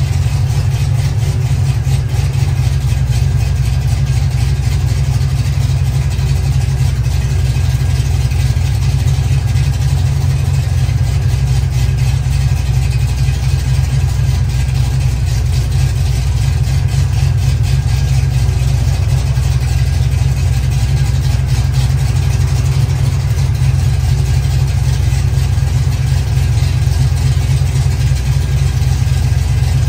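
Chevy Nova's engine, on a new Quick Fuel Brawler carburetor, idling steadily on its first run after a rebuild of the intake, valve covers and carb, with the ignition timing not yet set.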